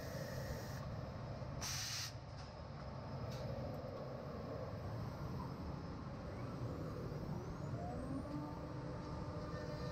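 CNC router machining centre running with a steady hum. About two seconds in there is a short burst of compressed-air hiss, and another brief hiss a second later, during a tool change at the tool magazine. Near the end a rising whine settles into a steady tone as the spindle moves over the workpiece and spins up.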